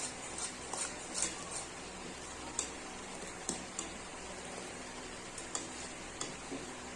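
Long-handled spoon stirring thickening milk and butter in an aluminium kadai, the spoon clicking lightly against the pan now and then over a steady low hiss of the boiling pot.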